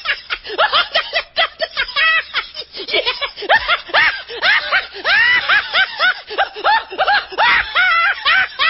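A high-pitched laughing meme sound effect: a long run of rapid, short 'ha' syllables.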